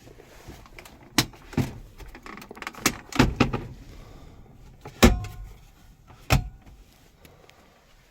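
A string of sharp knocks and clunks, about seven of them, from parts of a car being handled; the loudest comes about five seconds in with a short metallic ring after it.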